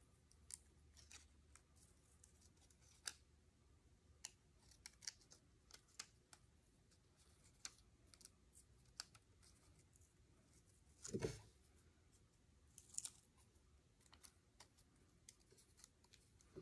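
Small scissors snipping through paper in faint, irregular snips, with a louder knock about eleven seconds in.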